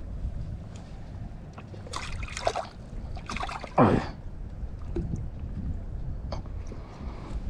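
Water splashing and trickling in two short bursts, about two seconds in and again around three and a half seconds in.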